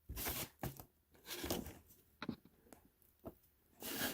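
Plastic dashboard switch panel being handled and probed with a small screwdriver: a string of short scrapes and clicks as the tip works at the blank switch insert's retaining tabs.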